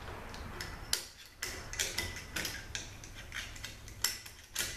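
Irregular sharp metallic clicks and clinks, about a dozen, from snap rings and clutch plates being worked out of a 42RLE automatic transmission's clutch drum.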